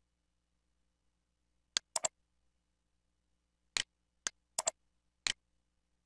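Computer mouse button clicks: about eight sharp clicks in small groups, several in quick pairs, as checkboxes are clicked on and off.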